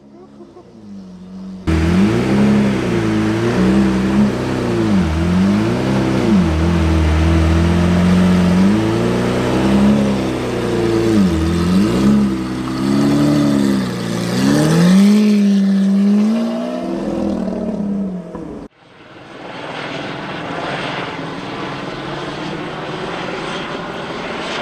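Lamborghini Aventador's naturally aspirated V12 revved over and over, its pitch climbing and falling with each blip. About three-quarters of the way through it cuts off suddenly, and a helicopter's steady drone follows.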